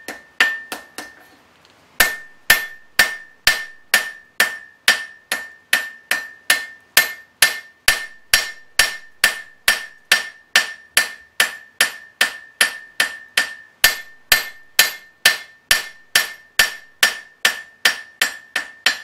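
Hand hammer striking red-hot horseshoe steel on an anvil, about two blows a second, each with a ringing anvil note, as the bar is drawn out into a tapering blade. A few lighter blows and a short pause open the passage, then the hammering runs on steadily.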